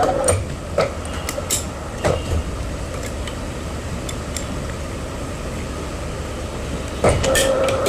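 Heavy construction machine running with a steady low rumble, with sharp metallic clanks and a squeal near the end.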